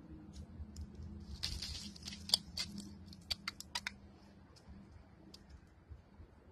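Faint trickle of loose soil, pebbles and dry leaves falling down a collapsing dirt bank, with a quick run of sharp ticks and rustles in the middle: the hole's wall is slowly caving in.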